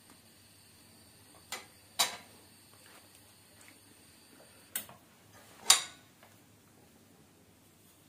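Stainless steel kitchen tongs clinking against a grill pan and plate: four sharp clicks in two pairs, about two seconds in and again about five seconds in.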